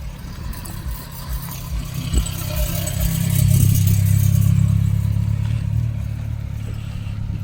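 Car engine running, with a steady low drone that swells louder about three seconds in and eases back a few seconds later: a modified Fiat Panda.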